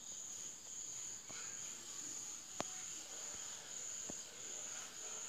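Faint steady high-pitched insect trill, with a few soft clicks about a second and a half apart.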